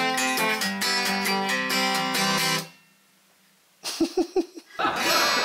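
Acoustic guitar being picked and strummed, stopping abruptly about two and a half seconds in. After a second of near silence come a few short sounds, and near the end a different, denser passage begins.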